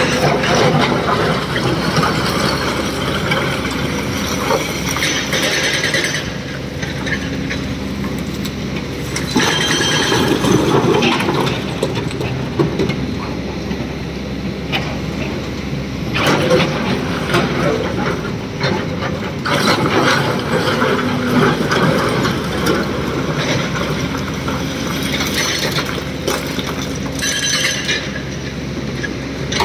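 Diesel excavator loading a dump truck: the engine runs steadily under load, with stretches of clattering and metallic clanking every several seconds.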